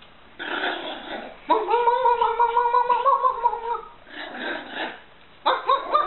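Poodle puppy play-growling: a long high-pitched, rolling, fluttering growl, with a rougher huff before and after it. Near the end come three quick, high, rising yips.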